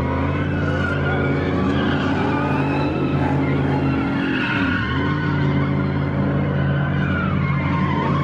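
Car engine held at high revs while its tyres spin and skid on the pavement in a drift or burnout, the engine note dropping briefly about halfway and climbing back.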